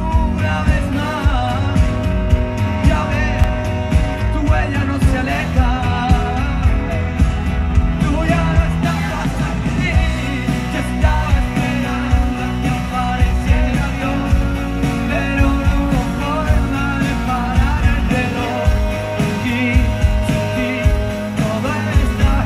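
Live pop band music with a male lead singer, with a steady beat under the vocal, recorded from among the audience.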